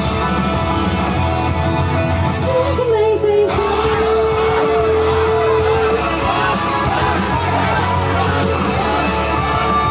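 An idol group's pop-rock song with electric guitar, played loud through a PA with girls singing into microphones. The backing thins out briefly about three seconds in, then a voice holds one long note.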